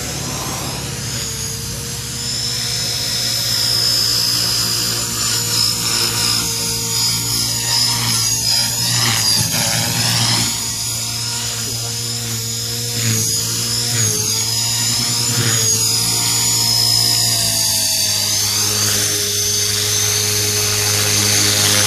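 Radio-controlled helicopter in flight: a steady motor and rotor whine whose pitch wavers up and down as it manoeuvres, growing louder about four seconds in.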